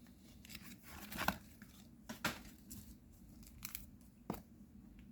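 Trading card booster pack wrapper being torn open and crinkled, with a few sharp crackles.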